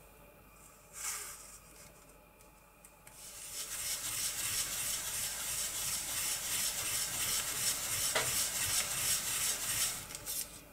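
Round foam ink blending tool scrubbed in quick small strokes over a plastic stencil on paper, inking the design through it: a steady scratchy scrubbing that starts about three seconds in.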